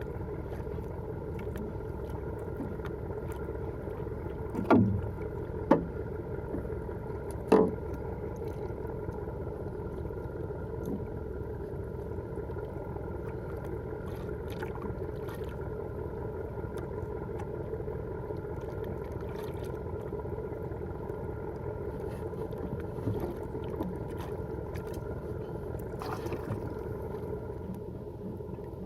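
Small fishing boat's engine running steadily at a constant speed. Three sharp knocks come between about five and eight seconds in.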